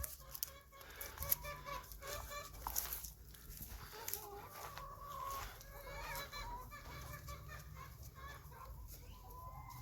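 Hens clucking quietly in short, repeated clucks, with a few light clicks.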